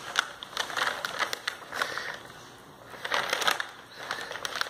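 Paper takeout bag crinkling and rustling as it is handled and opened by hand: clusters of sharp crackles in bouts, with a lull about two seconds in.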